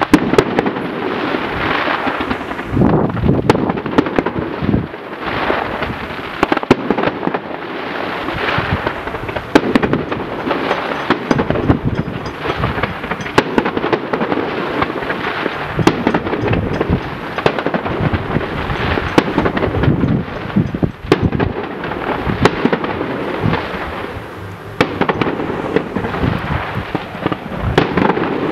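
Fireworks display: a continuous barrage of aerial shell bursts, sharp cracks and deep booms overlapping with no pause.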